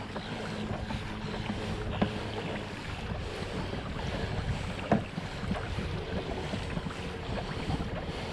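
Pedal-drive fishing kayak under way on calm water: a steady swish of water along the hull, with light wind on the microphone and a couple of faint knocks.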